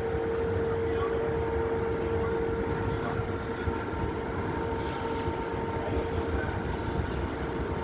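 Steady urban background noise: a low rumble with a constant mechanical hum that holds one pitch throughout.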